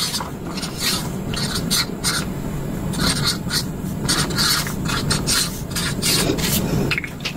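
Marker pen writing on a sheet of paper, a run of short scratchy strokes as numbers are written and circled.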